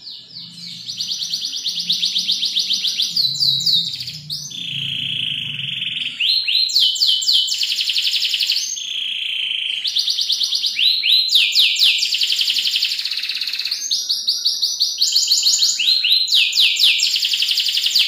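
Domestic canary singing a long, continuous song that starts abruptly: rolling trills of very fast repeated notes, some phrases sweeping down in pitch, alternating with a lower, steady buzzing trill.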